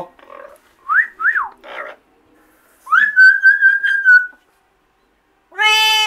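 Double yellow-headed Amazon parrot whistling: two quick up-and-down whistles about a second in, then one long, slightly wavering held whistle.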